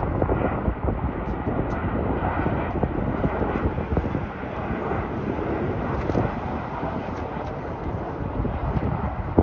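Boeing 737-800's CFM56 jet engines on a landing approach, a steady jet rush with a deep rumble underneath.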